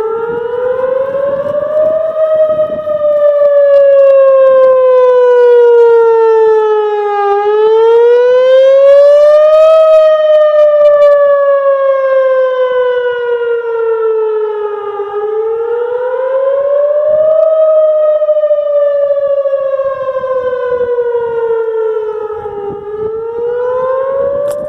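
Whelen Vortex outdoor warning siren sounding a weekly test with a wailing tone. Its pitch climbs for about two and a half seconds and then sinks for about five, repeating three times and starting a fourth climb near the end.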